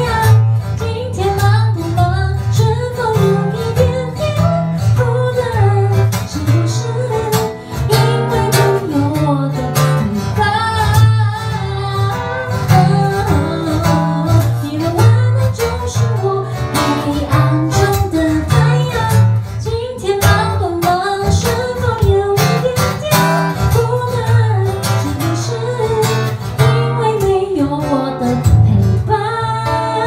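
A woman singing a gentle, sad love song into a microphone, accompanied by a strummed acoustic guitar, performed live.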